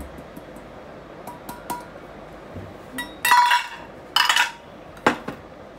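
Kitchen dishes clinking: a steel bowl and utensils knock against a glass mixing bowl of batter. The clinks come in the second half, a few sharp strikes, the first with a brief ringing tone.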